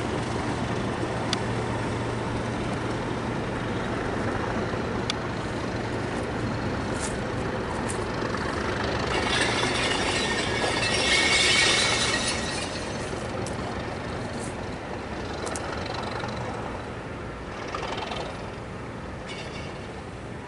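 Diesel locomotive hauling a train of carriages past at a distance. The engine gives a steady low drone under a broad rumble, and a rushing noise swells to its loudest just past halfway before easing off.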